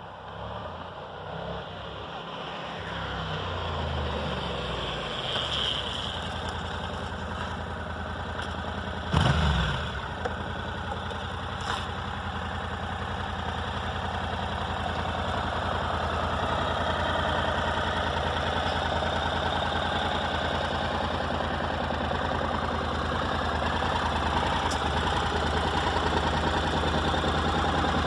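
Honda NC700's 670 cc parallel-twin engine starting and settling into a steady idle, which the seller calls sweet with no rattles. One loud thump about nine seconds in.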